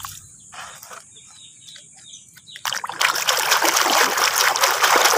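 Water splashing and pouring: soft, scattered splashes at first, then about three seconds in a loud, steady rush of pouring, splashing water as muddy toys are rinsed in clean water.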